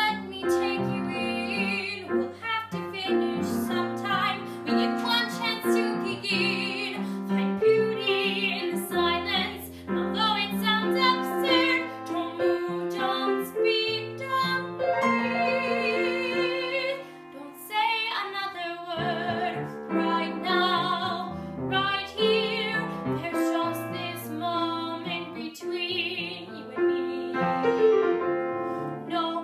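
A woman singing a musical-theatre song with vibrato on her held notes, accompanied by a grand piano.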